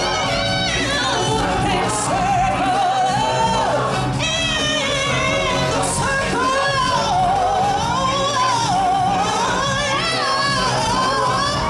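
Stage show music: a solo voice singing long, wavering held notes with vibrato over steady instrumental accompaniment.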